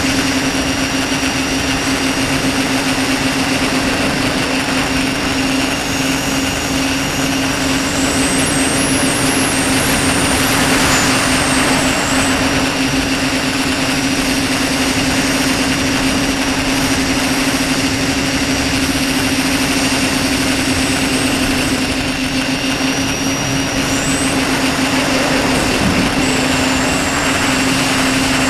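Tricopter's electric motors and propellers buzzing steadily, picked up by the onboard camera's microphone, with a constant low hum, a rushing hiss, and a thin high whine that slides up and down in pitch with the throttle several times.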